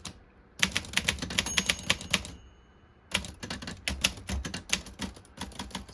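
Rheinmetall KST manual typewriter being typed on: rapid runs of key strikes, typebars clacking against the platen, with a pause of about a second midway.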